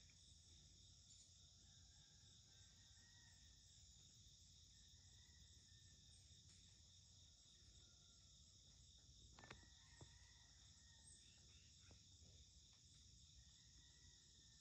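Faint steady chorus of crickets and other insects, with two soft clicks about nine and a half and ten seconds in.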